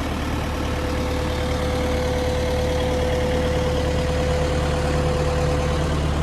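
Volvo BL71 backhoe loader's diesel engine idling steadily, a low hum with a steady whine above it.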